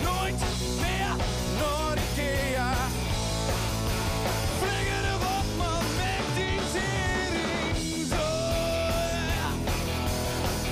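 A rock band playing live, with electric guitars and drums and a male voice singing over them.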